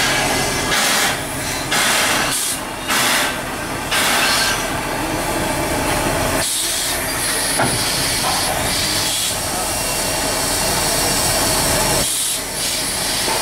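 Steam locomotive hissing steam, at first in a few short bursts and then as a steady hiss, with a brief drop near the end. It is shunting slowly onto a carriage.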